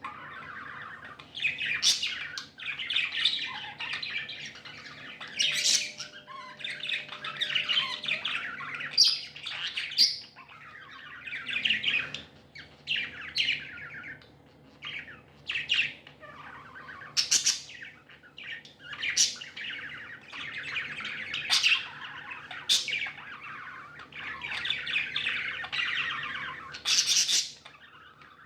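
Pet budgerigars chattering and warbling almost without a break, with frequent short sharp squawks.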